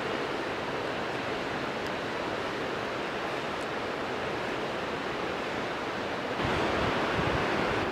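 Steady outdoor rushing noise, like wind or distant water. About six and a half seconds in it gets louder, with uneven low rumbling buffets of wind on the microphone.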